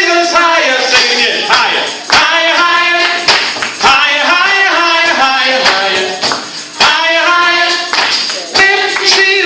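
Youth choir singing a praise song, voices together over sharp percussive hits that keep the beat.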